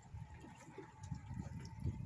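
Wind buffeting the microphone on an open boat at sea, an uneven low rumble, with a faint steady tone that fades out about three-quarters of the way through.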